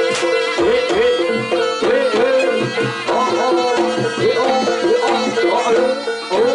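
Live jaranan music: repeated hand-drum strokes under a wavering melody that glides up and down in pitch.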